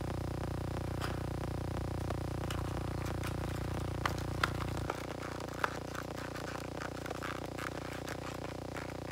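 Scattered small clicks and scrapes, as of small objects being handled, over a steady electrical hum; the deepest part of the hum drops out about five seconds in.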